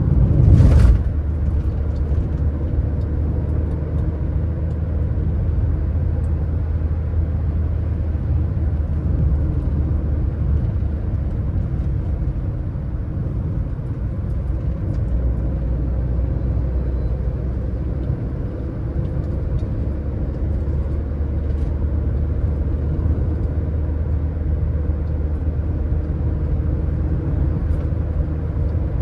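Car driving along a road: a steady low rumble of tyres and engine, with one brief loud thump about a second in.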